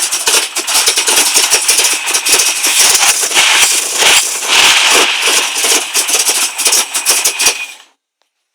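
Weber-carburetted Rover V8 idling roughly: an uneven, lumpy run with a loud hiss and irregular rattling ticks. The sound cuts off abruptly near the end.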